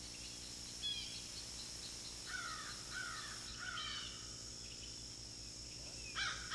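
Marsh ambience: a steady high insect drone with a fast ticking chirp over it. A bird calls three times in the middle, and louder bird calls start near the end.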